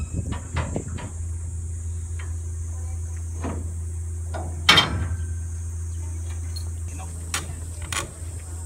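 Metal clanks and knocks from a hand-operated railway turntable as its lever is worked, with the loudest clank about halfway through and two more near the end. Under them run a steady high insect drone and a steady low hum.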